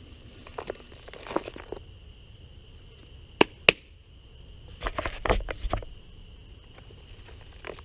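Short scraping and rustling handling sounds in two clusters, with two sharp knocks a third of a second apart near the middle, over a steady high whine.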